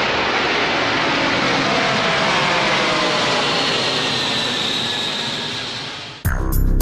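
Jet engines of the Antonov An-225 as it passes: a loud, steady jet noise with faint slowly shifting tones that fades away, then cuts off abruptly about six seconds in.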